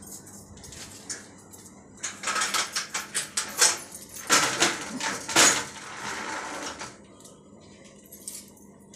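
Metal security grille gate rattling and clanking as it is unlatched and pushed open, a run of sharp metallic clatters for about five seconds with the loudest clanks in the middle, then settling.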